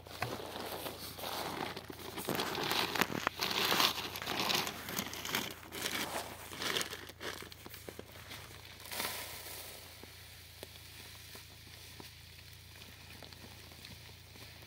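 Plastic fertilizer sack rustling and crinkling as it is handled and tipped toward a plastic tub, with many small crackles; loudest in the first half, quieter rustles after about nine seconds.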